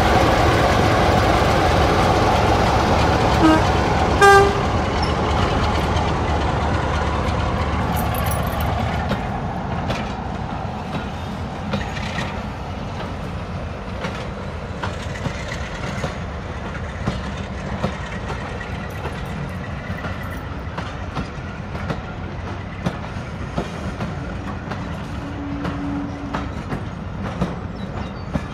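Diesel locomotive running under load, with two short horn toots about four seconds in. After about nine seconds the engine fades, and the wheels click over the rail joints as the train runs on.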